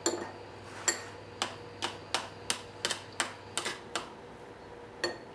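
Metal spoon clicking against a metal tart pan while pressing coarse semolina dough flat: about a dozen sharp, unevenly spaced taps over the first four seconds, then one more near the end.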